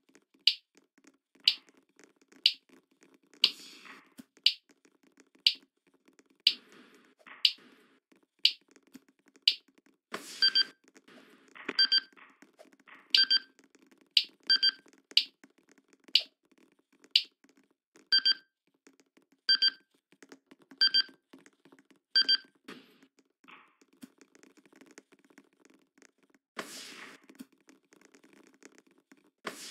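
Sharp, evenly spaced ticks about once a second. From about a third of the way in, a run of short electronic beeps comes roughly every second and a half, and both stop a few seconds before the end. A low steady hum lies underneath, and a couple of single knocks come near the end.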